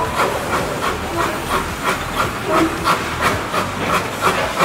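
Puffing Billy narrow-gauge steam tank locomotive working past with a train: even exhaust chuffs about four a second over a steady hiss of steam.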